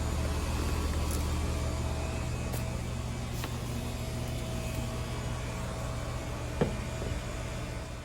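Outdoor air-conditioning condenser unit running: a steady low compressor hum under fan noise, with one short sharp tap about six and a half seconds in.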